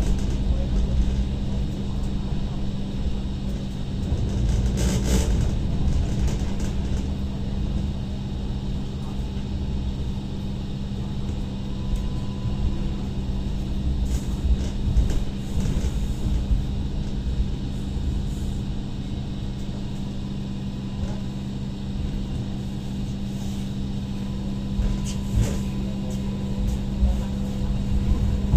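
Cabin of an MTR Light Rail Phase I car running: a steady low rumble of the wheels on the rails under a constant motor hum, with a few brief clatters about five seconds in and again near the end.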